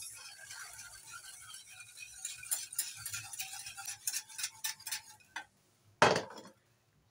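Wire whisk clinking and scraping against a stainless steel saucepan in rapid light strokes, stirring sugar into boiling water to dissolve it into a syrup. The whisking stops about five seconds in, followed by a single louder knock of the pan against the counter.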